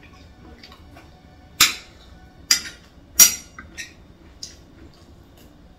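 A metal spoon clinking against a ceramic bowl and plate while eating: three sharp clinks in the middle, less than a second apart, then a few lighter taps.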